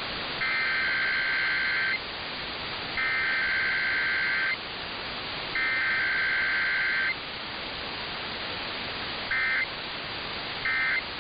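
Emergency Alert System SAME data bursts for a weekly test. Three buzzing digital header bursts of about a second and a half each come about a second apart, followed by two short end-of-message bursts, over a steady hiss. No two-tone attention signal comes between them, as is usual for a required weekly test.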